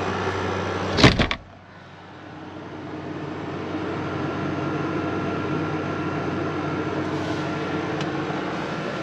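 About a second in, the camper shell's rear window shuts with a bang. Then the truck-camper air conditioner hums steadily, powered from a lithium battery through an inverter and drawing about 450 watts.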